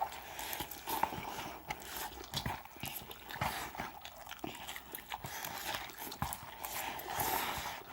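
People eating instant ramen noodles fast: irregular slurping and chewing noises with scattered sharp clicks.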